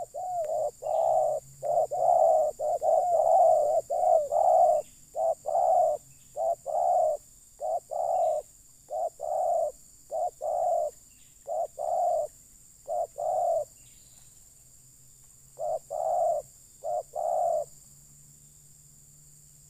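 Spotted dove (terkukur) cooing: a long run of short, rhythmic coo notes, loudest in the first half, breaking off about two-thirds through, then a few more coos before it stops near the end.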